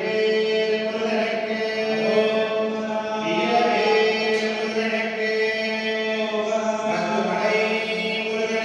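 Hindu devotional chanting, voices intoning a mantra over a steady held drone.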